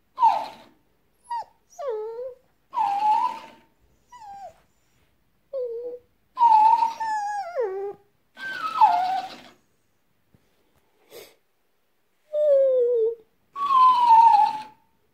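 French bulldog 'talking back': a series of about ten short whining, yowling calls with short pauses between. The pitch slides up and down in each call and mostly falls at the end, and several have a rough, gravelly edge.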